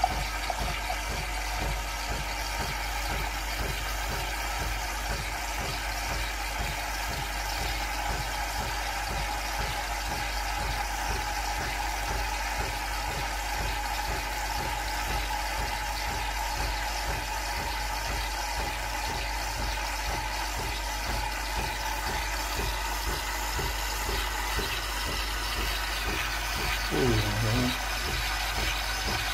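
Nespresso Lattissima Touch frothing milk: the machine runs with a steady, unbroken hiss and hum as frothed milk pours from its milk spout into the glass.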